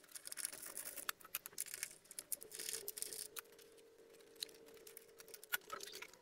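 Light metallic clicks and small scraping handling noises as bolts are fitted and hand-threaded into the pinion cover on a Yamaha T-Max 530's final drive.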